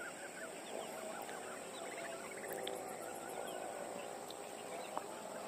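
A chorus of many small birds chirping and calling, dense overlapping short chirps, over a steady high-pitched hiss.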